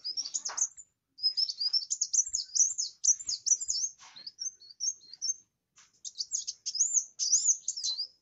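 Kolibri wulung sunbird singing hard: quick runs of high, thin chirps and twittering trills, broken by a couple of short pauses.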